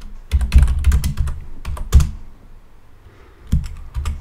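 Computer keyboard typing: a quick run of keystrokes for about two seconds, a pause, then a few more keystrokes near the end.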